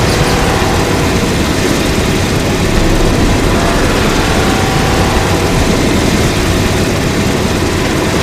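Kaiju sound effect: a loud, steady rumbling rush of noise with a heavy low end.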